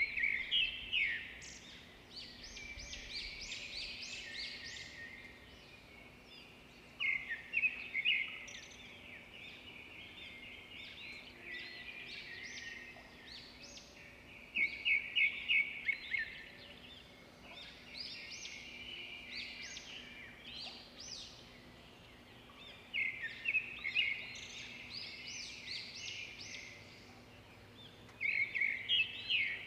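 Small birds chirping: loud bursts of rapid, high chirps about every six to eight seconds, with quieter chattering calls in between.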